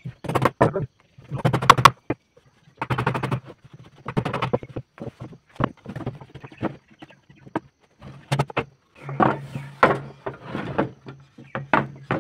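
Irregular wooden knocks, thuds and clatter as timber pieces of a chair frame are handled and fitted together on a wooden workbench.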